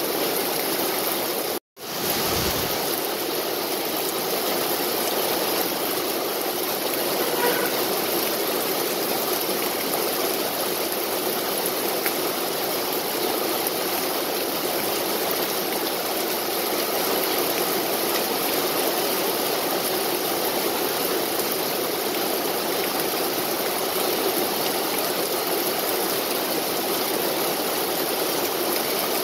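Steady rain falling, an even hiss that does not let up. It cuts out for a split second about two seconds in.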